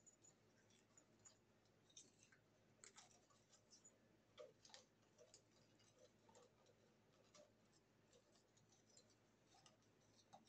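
Near silence with faint, scattered clicks and light taps of small decorations being handled and rearranged.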